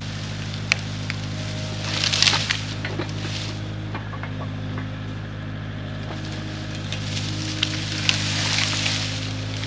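Kubota KX057-4 excavator's diesel engine running steadily under work, with short tones shifting in pitch and a few sharp knocks and cracks scattered through.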